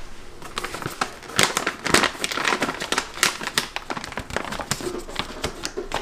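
Coffee bag being handled, its packaging crinkling in irregular crackles.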